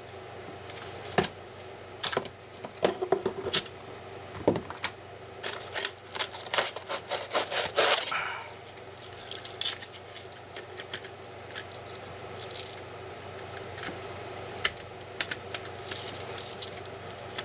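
Handling noise from a cordless multi-tool's plastic body and attachment heads: scattered clicks, knocks and rubbing as a head is worked onto the tool, with no motor running.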